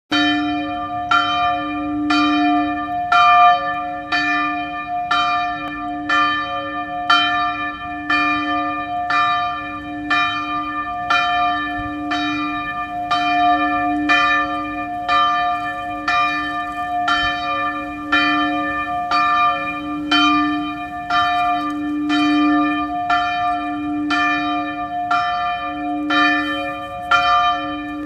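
A single church bell ringing a call, struck steadily about once a second, each stroke ringing on under the next.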